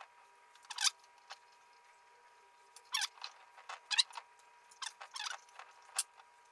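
Small metal clicks and scrapes from the terminal box of a three-phase induction motor: the nuts on the terminal studs being undone and the coupling bars and nuts taken off and set down on the tabletop. The clicks are short and irregular, with most of them in the second half.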